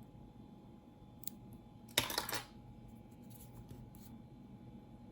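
A sharp snip about two seconds in, with a quick rustle right after: the tag ends of monofilament fishing line being cut with a small cutting tool. Faint clicks of handling come before and after.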